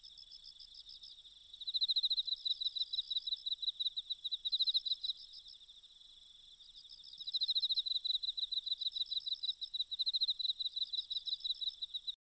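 Insects chirring in rapid, high-pitched pulsed trills, swelling into two loud stretches of a few seconds each over a quieter continuous chirring, then cutting off just before the end.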